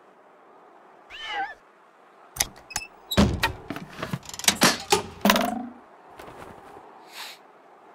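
A brief wavering, meow-like cry, then about three seconds of sharp clicks, knocks and short squeaks from a home-made mechanism on a hawker's tray.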